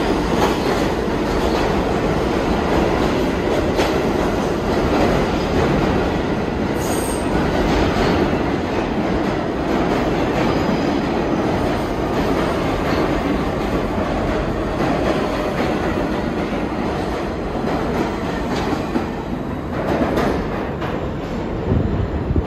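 New York City subway train running along the track: a continuous, steady noise of wheels on rail.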